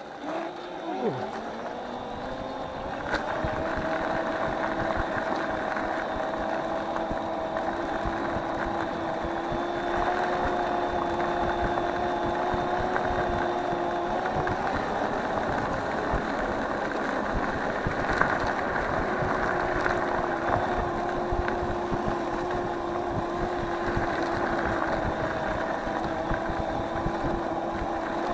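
Electric scooter's motor whining as it pulls away, the pitch rising over the first few seconds and then holding a steady tone at cruising speed, over road and wind noise.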